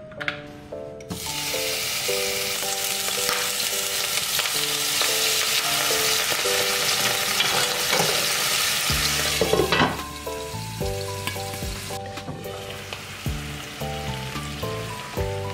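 Hot oil in a nonstick frying pan sizzling and spattering hard as iced frozen green onion goes in with pork and shrimp: the ice and water hitting the hot oil. The sizzle starts about a second in and eases off after about ten seconds.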